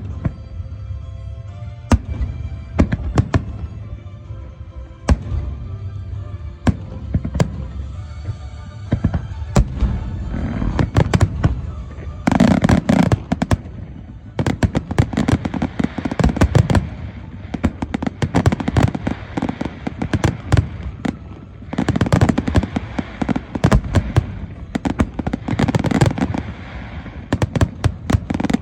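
Aerial fireworks bursting: scattered single booms at first, then from about twelve seconds in, dense volleys of rapid bangs and crackling shells in repeated waves.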